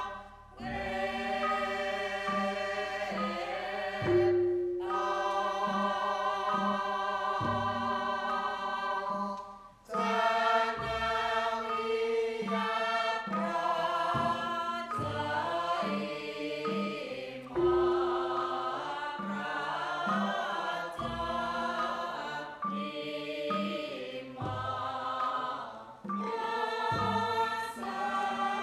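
Javanese court gamelan accompanying a bedhaya dance, with a chorus of voices singing long held notes over low struck gong-like tones that come about once a second. The music drops away briefly about ten seconds in.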